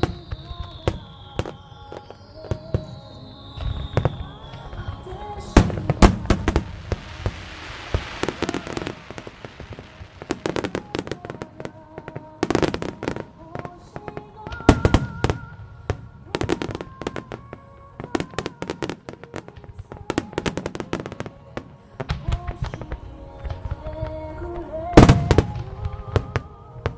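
Large aerial fireworks shells bursting over and over in sharp booms and cracks, with a dense crackling shower about seven to nine seconds in and two falling whistles near the start, over music played on loudspeakers.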